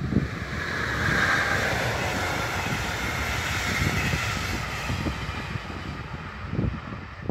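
Locomotive-hauled double-deck regional train passing at speed: steel wheels rolling on the rails in a broad rushing noise that swells quickly within the first second, holds for about five seconds and fades as the rear car goes by.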